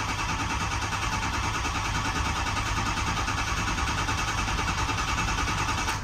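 Ford 6.0 Powerstroke diesel turning over on the starter without firing, with a steady cranking drone that stops near the end. It is a hot crank-no-start, with injection control pressure reaching only about 200 while cranking; the mechanic suspects a faulty IPR valve.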